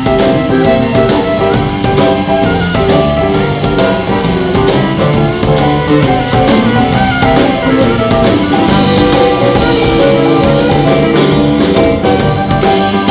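Live roots band playing an instrumental break, with a drum kit keeping a steady beat under sustained instrument lines.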